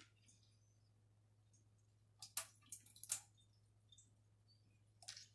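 Near silence over a steady low hum, broken by a handful of short plastic clicks and rustles, a cluster between two and three seconds in and one more near the end, as a plastic trigger-spray head is handled.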